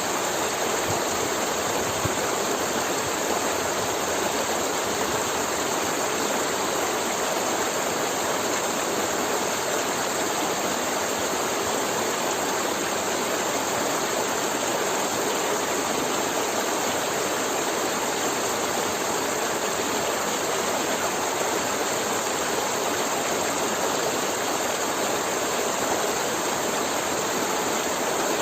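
A forest river flowing steadily over rocks, a continuous rushing and gurgling of water.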